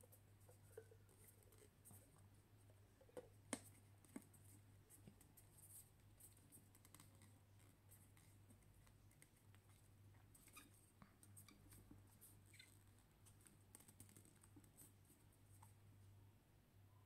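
Faint clicks, taps and scratches of fingers handling a reusable coffee cup: the lid is pressed on and its drinking-hole cover tab is worked back and forth. A few sharper clicks come about three to four seconds in.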